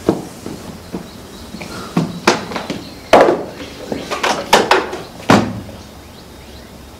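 Plastic box and its lid being handled and set down on a stage floor: a string of sharp knocks and clatters, the loudest about three seconds and five seconds in.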